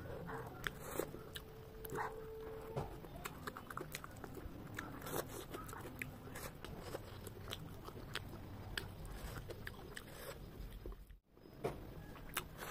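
Close-up eating sounds: chewing and small crunches while eating rice and curry by hand, a string of short clicks throughout. The sound drops out briefly near the end.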